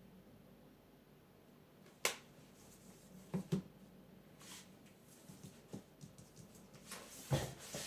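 Scattered sharp clicks and light knocks. One sharp click comes about two seconds in, two knocks follow close together about a second later, and a cluster of knocks comes near the end.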